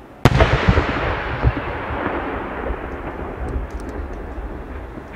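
Aerial fireworks shell bursting with a loud boom about a quarter-second in, followed by a few quick reports and a long rumbling echo that slowly fades. Another boom comes right at the end.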